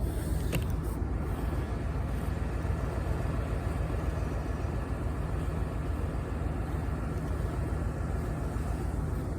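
Old Ford pickup truck with a 351 V8 running with a steady low rumble of engine and road noise, with a single click about half a second in.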